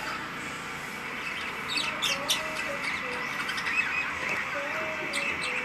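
Lovebirds chirping and chattering, with quick runs of short, sharp high chirps about two seconds in and again near the end.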